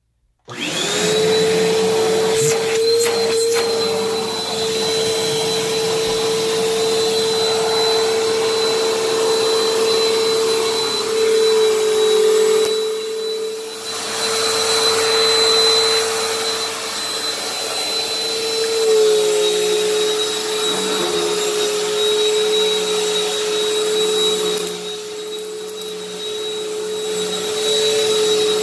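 Repaired Bissell PowerForce bagged upright vacuum cleaner switched on about half a second in, then running with a steady whine as it is pushed over a rug. Its pitch drops slightly about two-thirds of the way through.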